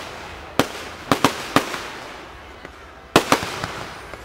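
Fireworks display: aerial shells bursting in sharp bangs. There are four in the first second and a half, then a quieter fading stretch, then a quick cluster of bangs about three seconds in, each with an echoing tail.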